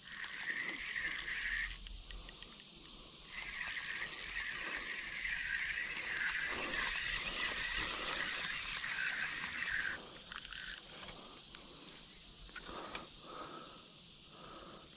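Spinning fishing reel being cranked to reel in line, a steady whirring whine from its gears. It pauses briefly about two seconds in and stops about ten seconds in, with a small fish reeled in and landed.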